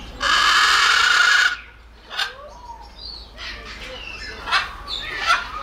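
Macaw giving one loud, harsh screech lasting over a second, followed by quieter short squawks and chirps.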